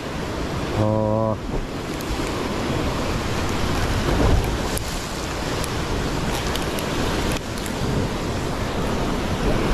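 Rough sea surging and washing against the rocks at the foot of a cliff, a steady rush of waves and current, with wind noise on the microphone.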